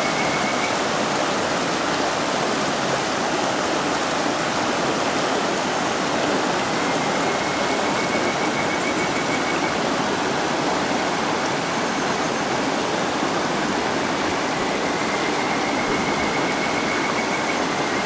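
Shallow mountain stream rushing over a low stone weir and shallow rapids: a steady, even rush of water.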